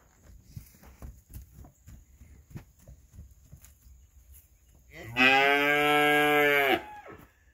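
A beef calf gives one long bawling moo, about two seconds, near the end: a feeder calf in the middle of weaning.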